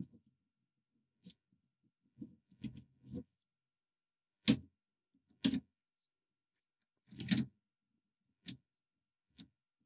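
Plastic clicks and knocks as a cassette deck's control-button circuit board and its plastic mount are unclipped from their latches and lifted out: a scattering of short separate clicks, with three louder knocks in the second half.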